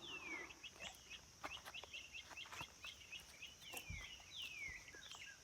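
A bird calling faintly: a quick run of short chirps, each falling in pitch, broken by a few longer downward-sliding calls, over a steady high hiss, with a few faint clicks.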